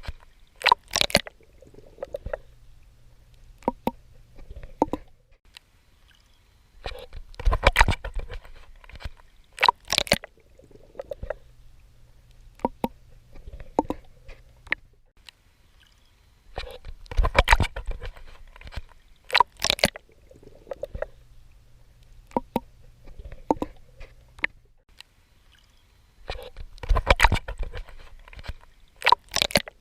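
A swimmer's strokes splashing and sloshing in sea water, coming in clusters about every ten seconds, with a low steady hum in the quieter stretches between.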